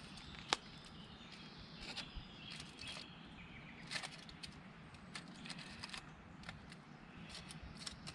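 Faint crinkling of aluminium foil and soft handling clicks as bacon is pressed onto a bread roll, with one sharper click about half a second in. Birds chirp faintly in the background.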